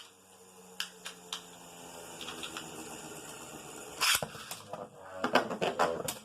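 Beyblade tops and launchers: a few sharp plastic clicks, a short rasping burst like a ripcord launch about four seconds in, then a rapid clatter of spinning tops hitting each other in the plastic stadium near the end.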